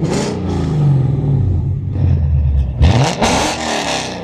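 Lexus RC F's 5.0-litre V8 with PPE unequal-length headers revving: the pitch climbs sharply at the start and falls away over the next two seconds, then a second quick rev about three seconds in, the loudest moment, which drops off near the end.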